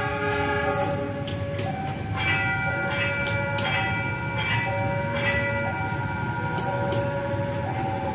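Diesel locomotive air horn, a CC 206, sounding a chord that stops about a second and a half in. It is followed by a bell-like electronic chime playing alternating higher and lower notes over the low rumble of the slowly moving locomotive.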